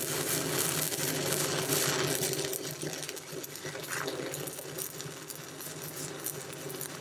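Stick-welding arc crackling steadily from a low-hydrogen electrode, with a steady low hum beneath it. It eases somewhat after about three seconds.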